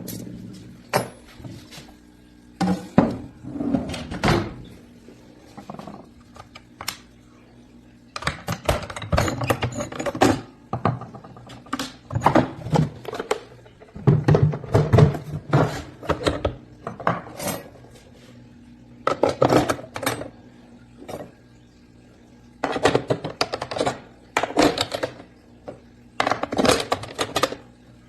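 Hard objects clinking and knocking as they are handled, in irregular bursts of clatter with short pauses between them.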